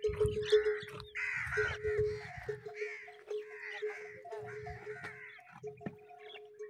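Crows cawing, a string of harsh calls one after another, over a steady hum.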